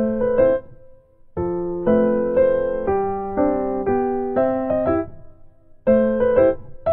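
Background piano music: gentle chords played in short phrases, with brief gaps about a second in and again around five and a half seconds.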